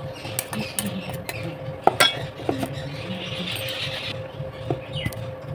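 Steel kitchen utensils clinking and scraping: a spoon and a lid knocking against a steel pot, with one sharp ringing metallic clink about two seconds in and a brief scrape a second later, over a faint steady hum.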